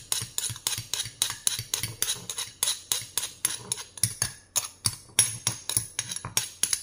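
Stone pestle pounding a wet chili-garlic paste in a stone mortar in a steady rhythm of about four strokes a second, with a metal spoon clinking against the pestle and the stone.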